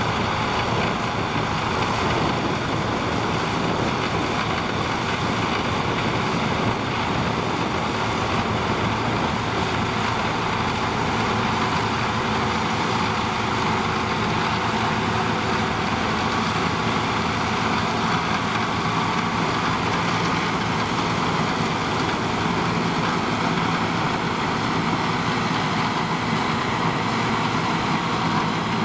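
A New Holland TM150 tractor running steadily under load, driving a trailed forage harvester whose chopper blows cut grass into a trailer, with a second tractor drawing the trailer alongside.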